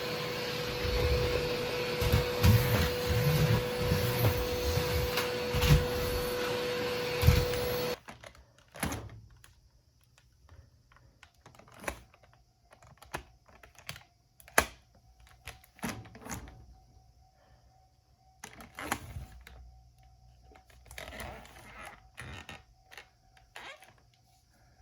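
Vacuum cleaner running over tatami with a steady whine and knocks from the floor head, then switched off suddenly about a third of the way in. Scattered light clicks and knocks follow as it is handled.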